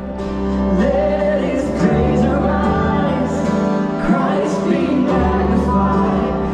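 Church worship music: voices singing over instruments, with a steady low bass underneath.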